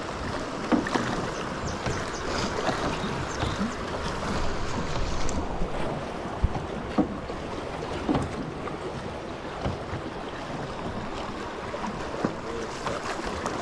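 River water rushing around a drifting boat, with wind buffeting the microphone and a few light knocks from the boat.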